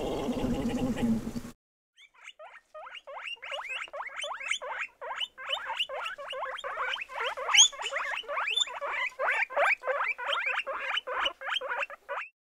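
Guinea pig squeaking: a long run of short, rising squeaks at several a second, which stops shortly before the end. Before it, a low sound cuts off suddenly about a second and a half in.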